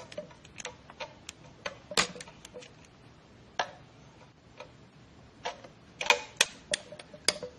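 Steel screwdriver tip clicking and scraping against a C-clip and the splined output shaft of an automatic transmission as the clip is pried out of its groove. Irregular sharp metal clicks, with several close together about six seconds in.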